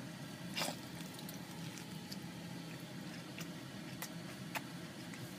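A person biting into and chewing a pretzel-bun bacon cheeseburger with a soggy bun: a brief louder bite sound under a second in, then faint wet mouth and chewing clicks over a steady low hum.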